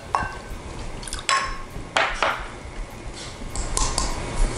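Small prep bowls clinking and knocking against the rim of a mixing bowl as ingredients are emptied in: five or six separate clinks, some with a brief ringing tone.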